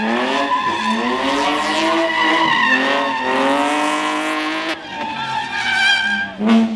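A car sliding and drifting: its engine revs up and down in repeated surges while the tyres squeal, with a brief louder burst near the end.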